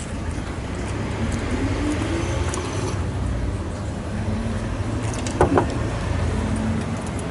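Steady low background rumble with faint wavering tones, and one short sharp knock about five and a half seconds in.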